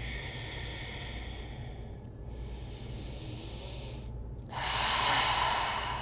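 A woman breathing slowly and audibly through her nose during a yoga pose: one long, soft breath, then a louder breath starting about four and a half seconds in.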